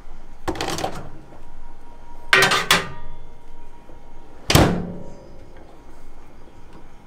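Knocks and clatter as a ceramic bowl is put on the metal tray of a microwave oven, a double knock near the middle, then the microwave door shut with a sharp thunk about four and a half seconds in.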